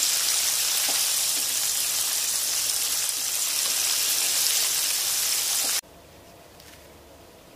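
Battered chicken pieces deep-frying in hot oil: a loud, steady sizzle that cuts off abruptly about six seconds in, leaving only faint room tone.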